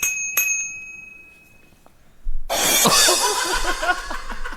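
A small handlebar-mounted cymbal used as a horn, struck twice in quick succession and ringing out with a bright metallic tone that fades over about a second and a half. About halfway through, a louder, noisier burst with a fast up-and-down warbling pitched sound takes over.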